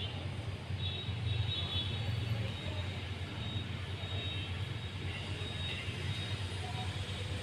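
Steady low mechanical hum of machinery, with faint high whining tones coming and going.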